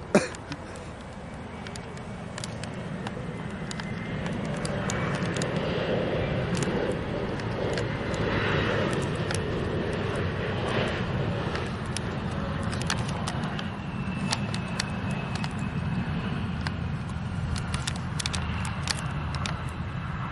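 Airplane engine noise that grows louder from about four seconds in and then holds steady, with a faint high whine slowly falling in pitch. A sharp click comes at the very start, and scattered light clicks follow.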